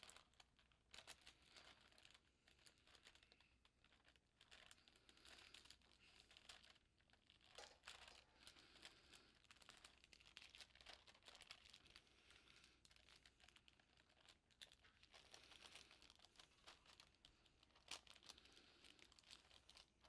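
Faint, irregular crinkling of parchment paper as its edges are folded and crimped by hand to seal a cooking packet.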